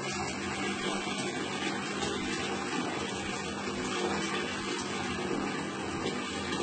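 Water running steadily, a constant rush with a faint low hum under it.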